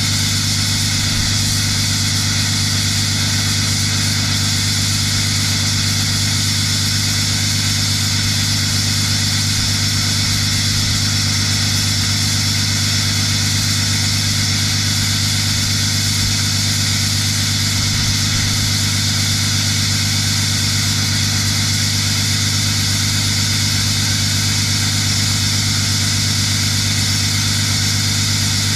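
6.7-litre Cummins inline-six turbodiesel idling steadily after a cold start, a continuous even drone with no change in speed.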